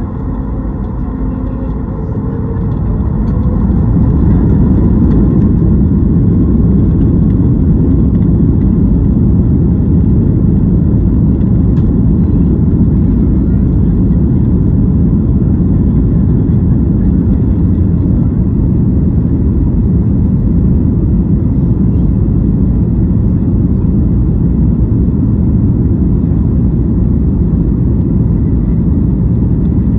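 Boeing 737 MAX 8's CFM LEAP-1B engines at high thrust, with the rumble of the wheels on the runway, heard inside the cabin, typical of a takeoff roll. The sound builds over the first few seconds and then holds steady and loud.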